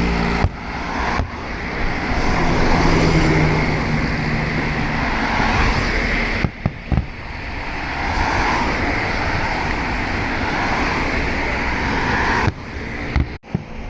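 Steady noise of road traffic, with an engine humming for a couple of seconds a few seconds in and the sound dipping briefly twice.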